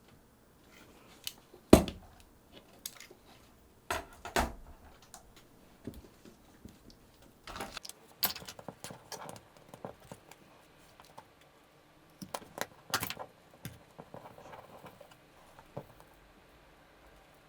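Small hard parts and tools being handled during repair of a camcorder's bottom case: irregular light clicks and taps, with a few sharper knocks, the loudest about two seconds in.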